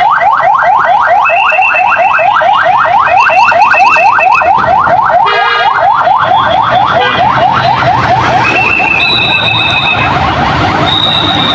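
Police vehicle siren on a fast yelp: rapid rising sweeps, about five a second, without a break. Several steady higher tones, each about a second long, sound over it now and then.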